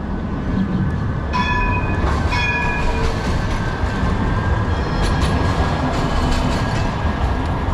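Modern electric street tram passing close by on its rails, a steady low rumble that swells about a second in, with two short horn toots between about one and a half and three seconds in.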